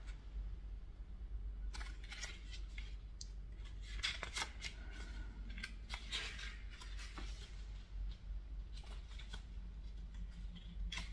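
Pages of a small paper photo booklet being turned and handled: soft paper rustles and flicks, several times, with pauses between.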